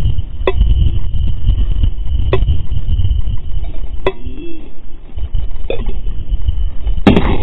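Wind rumbling on the camera microphone, with a few sharp knocks about every one and a half to two seconds.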